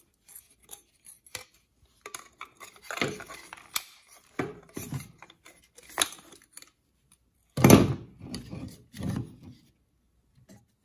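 Plastic housing of a Stanley FatMax rechargeable spotlight being pulled apart and handled: scattered clicks, creaks and rattles of plastic and metal parts, with one louder knock about two-thirds of the way through.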